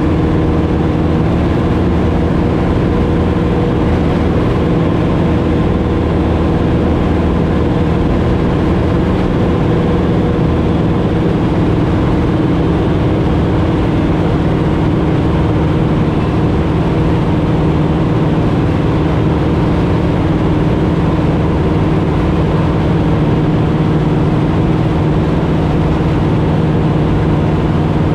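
Super Cub's piston engine and propeller running steadily in cruise flight, heard from inside the small cabin.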